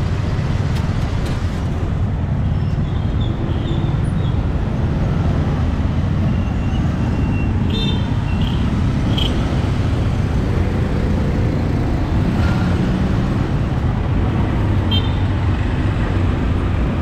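Street traffic noise: motor vehicles running past in a steady rumble, with a few short high toots.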